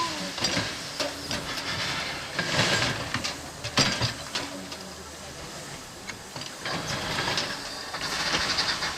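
Erie Type A steam shovel working: a steady steam hiss with scattered clanks and knocks, one sharp knock a little before the middle. Near the end a fast, even chuffing of steam exhaust sets in.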